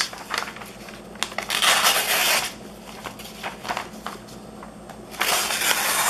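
Spyderco Double Bevel folding knife's VG-10 steel blade slicing through a sheet of paper: two hissing cuts about a second long each, one about a second and a half in and the other near the end, with faint paper rustling between them. The clean cuts are the sign of an edge that comes very sharp out of the box.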